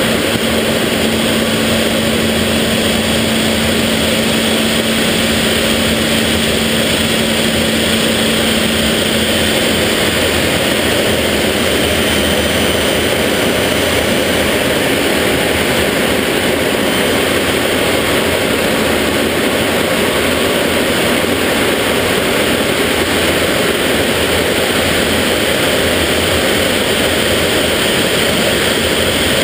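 Inside the cockpit of a BAC Jet Provost in flight: a loud, steady rush of engine noise from its Armstrong Siddeley Viper turbojet mixed with airflow over the canopy. A low steady hum under it fades out about ten seconds in.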